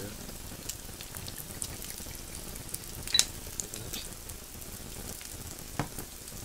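Pork belly sizzling on an electric grill pan: a steady hiss with scattered small pops of fat. A sharp click about three seconds in, and a knock near the end.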